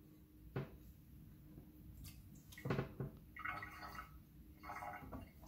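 Faint handling of a toilet flapper's metal chain and clip inside the tank: a few sharp clicks, then short bursts of gurgling water in the second half as hands move in the tank water.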